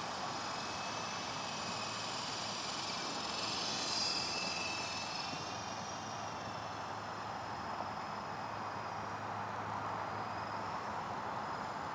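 Lama helicopter running in flight: a steady rush of turbine and rotor noise with a low hum and a high turbine whine, swelling briefly about four seconds in.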